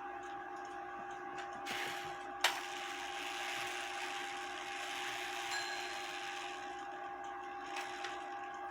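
Small handling noises from a Black Forest clock movement being worked on by hand: soft rubbing and shuffling, and one sharp metal click about two and a half seconds in, over a steady faint hum.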